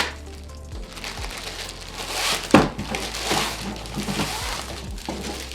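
Packaging rustling and crinkling as a cable management basket is lifted out of its box and unwrapped, with scattered small clicks and one sharp knock about two and a half seconds in.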